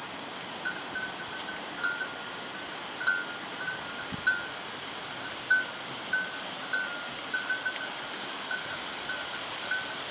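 Bear bell jingling in short, uneven rings about every half second to a second, over a steady background hiss.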